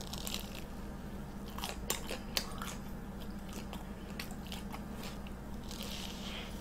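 Close-up eating sounds of a deep-fried Korean hot dog with a crisp crumb coating: bites and chewing with a scattering of short crisp crunches, over a steady low hum.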